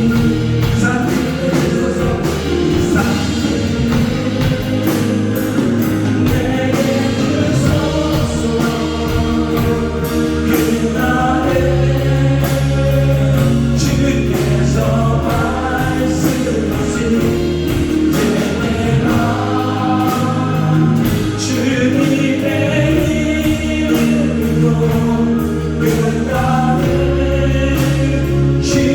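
Church praise team singing a contemporary worship song with band accompaniment: held sung notes over a bass line and a steady drum beat.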